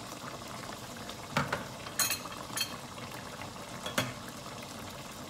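Chicken curry sauce simmering in a pot, bubbling steadily, with a few short sharp pops scattered through.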